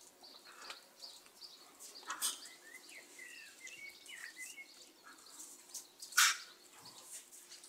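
Birds chirping faintly in a cluster of short calls about three to four and a half seconds in, over quiet outdoor background noise. Brief scuffing noises twice, the louder one about six seconds in.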